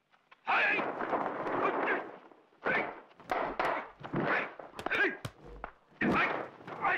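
Kung fu fight sound track: a long shouted battle cry, then a rapid run of short yells and grunts mixed with sharp dubbed punch and kick impact effects.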